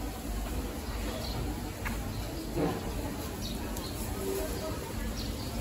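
Covered-market ambience: an indistinct murmur of distant voices with scattered clicks and clatter over a low steady hum.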